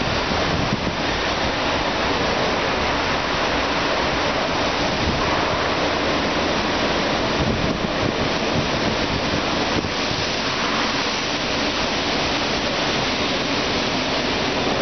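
Steady wind noise buffeting the microphone: an even rushing hiss with an unsteady low rumble and no distinct events.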